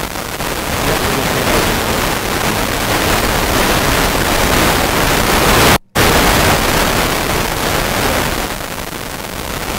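Loud, steady hiss of recording noise, like static. It cuts out to silence for a split second about six seconds in, then returns.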